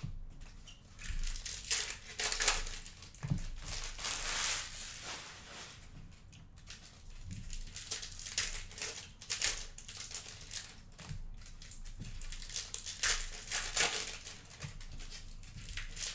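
Plastic trading card pack wrappers crinkling as baseball card packs are torn open and handled, in irregular bursts of crackling.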